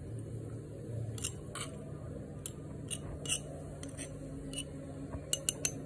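Small metal spatula clicking and scraping against a miniature iron tawa and a stone slab as roasted cashews are lifted off and set down. The sound is a string of light, sharp taps, with a quick run of three near the end, over a low steady hum.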